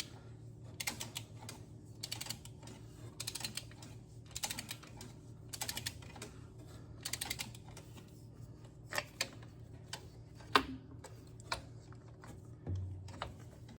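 Ratchet wrench clicking in short bursts as manifold bolts are run down and torqued to 25–30 foot-pounds, followed by a few single sharp clicks, the loudest about ten and a half seconds in.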